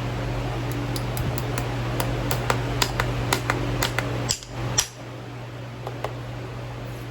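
A run of light, sharp metallic taps, roughly two or three a second, over a steady fan hum. About four seconds in the hum drops away and a couple of louder clicks follow.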